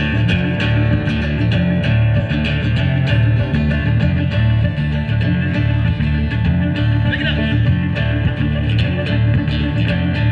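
A live band playing an instrumental passage with no vocals: guitar over a steady, rhythmic bass line.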